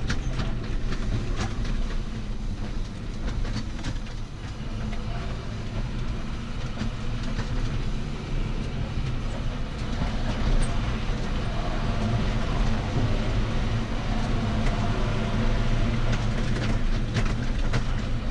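John Deere tractor engine running while the tractor drives, heard from inside the cab, with scattered rattling clicks. The engine dips briefly about four seconds in, then builds again.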